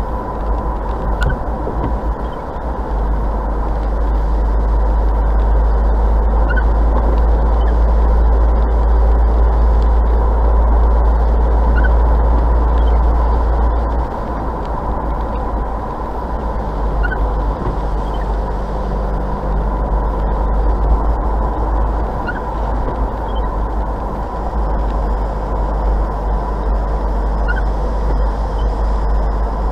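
Car driving at about 50 km/h, heard from a dashcam inside the cabin: a steady deep road and engine rumble that eases slightly about halfway through, with a short faint chirp repeating about every five seconds.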